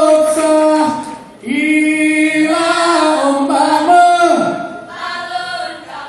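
Saman dance troupe singing in unison: a chanted song of long held notes, with a short break about a second and a half in.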